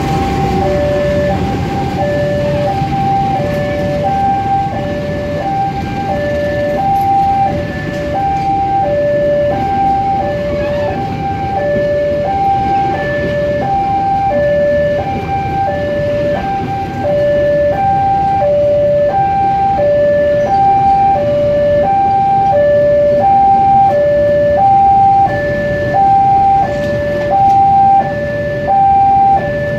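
Level-crossing warning alarm alternating steadily between two pitches while a passenger train's coaches rumble past on the rails.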